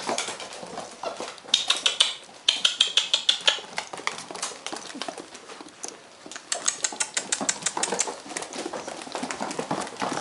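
Five-week-old Weimaraner puppies' claws clicking on a wooden floor as they scamper about, with flurries of rapid ticks about two seconds in and again about seven seconds in.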